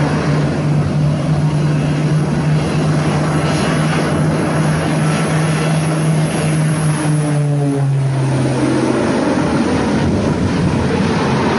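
Engines of a large propeller aircraft flying close by: a loud, steady low hum over rushing noise. The hum drops slightly in pitch about eight seconds in as the plane passes.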